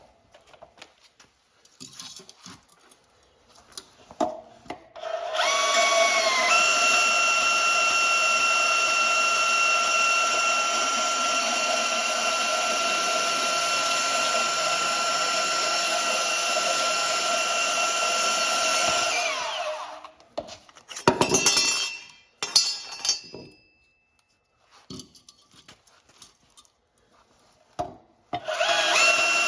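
Electric power tool motor spinning up with a rising whine, running steadily for about fourteen seconds, then winding down. A few sharp metallic knocks follow, and the tool spins up again near the end.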